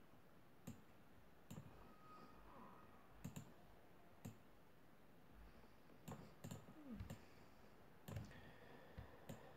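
About a dozen faint computer-mouse clicks, scattered and some in quick pairs, over near-silent room tone.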